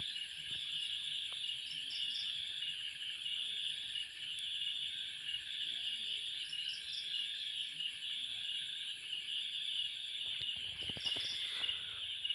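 Steady, shrill chorus of insects with a fine pulsing texture, with a few soft knocks about two seconds before the end.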